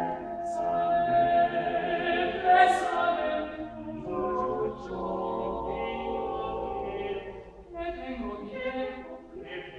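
Six-voice male a cappella ensemble singing in close harmony. A note is held for about a second at the start, the chord swells loudest about three seconds in, and there is a brief breath near eight seconds before the next phrase begins.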